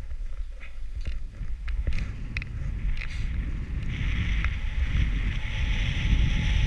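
Wind buffeting the microphone while a snowkiter rides across snow, with the hiss of sliding over the snow growing louder about four seconds in and a few light clicks early on.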